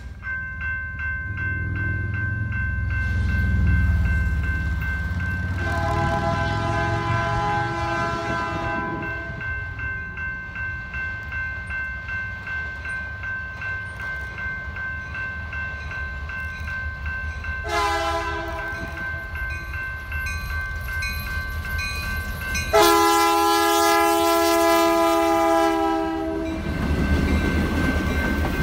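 Canadian National diesel locomotive's air horn sounding as the train approaches: a long blast about six seconds in, a short one near eighteen seconds, and the loudest, longest blast about twenty-three seconds in as the locomotive comes close. After that the low rumble of the train's cars rolling past rises.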